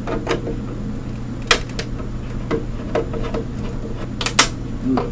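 Plastic parts of an iMac G3's casing being worked loose by hand: scattered sharp clicks and knocks, the loudest about one and a half seconds in and a pair near the end, over a steady low hum.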